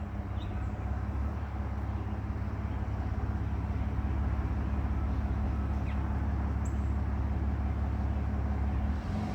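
Steady low rumble of passing road traffic, a car engine's drone that grows slightly louder, with a few brief bird chirps over it.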